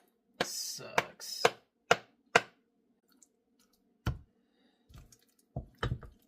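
A handful of separate sharp clicks and knocks, some a second or two apart and two close together near the end, from kitchen dishes and utensils being handled.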